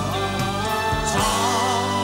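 A man singing a Cantonese pop ballad live into a handheld microphone over band accompaniment with a steady bass. He holds a long, wavering note through the second half.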